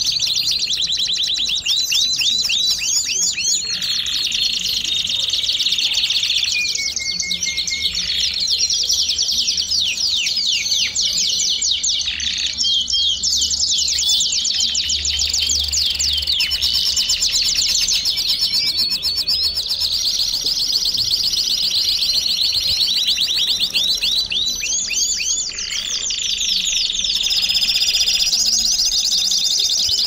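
Belgian canary singing continuously: long fast trills of quick sweeping notes, with steady held whistled tones in between, one held low near the end.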